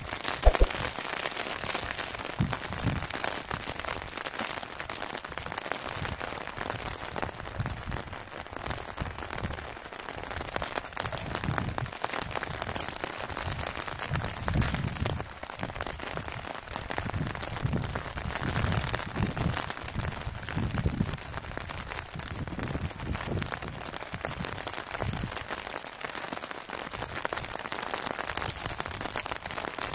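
Steady rain pattering, a dense crackling hiss, with irregular low thuds every second or two under it.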